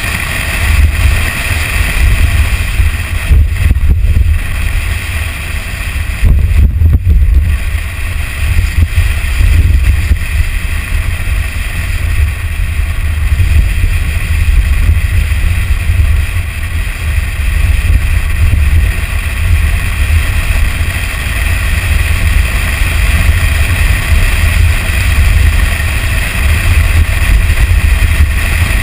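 Low rumble of wind buffeting a roof-mounted camera on a Toyota Tacoma pickup driving fast on a dirt trail, mixed with the truck's running and road noise. The level swells and dips without a break.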